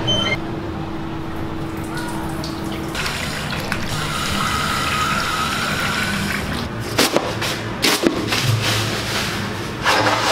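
Water rushing through a restroom fixture for about three seconds with a steady hiss, followed by two sharp clicks.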